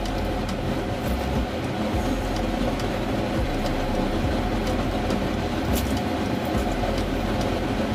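Steady machine hum with a few faint light clicks.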